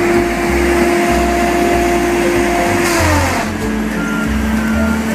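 Wheeled feller buncher's saw head and engine running with a steady whine that slides down in pitch about three seconds in, with a brief rush of noise, as the saw bites into a tree trunk.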